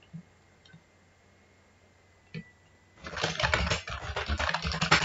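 Computer keyboard typing: a few single keystrokes, then a rapid run of keystrokes from about three seconds in.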